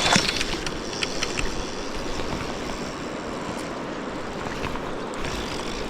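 Steady rushing of a river's flowing water, with a few faint ticks in the first second and a half.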